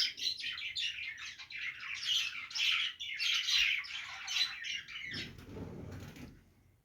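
Budgerigars chattering and warbling, a dense run of quick chirps and squawks that thins out and fades near the end.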